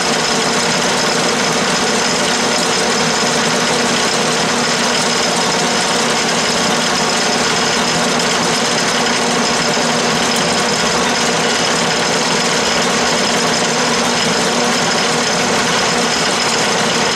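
12-inch Atlas/Craftsman lathe running steadily while its cutting tool feeds along aluminum bar stock, turning a 3-degree taper. The machine noise is an even drone with no breaks.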